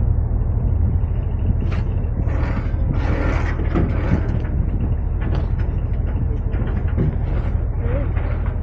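A boat's engine running with a steady low drone, with scattered clicks and knocks over a haze of wind and water noise.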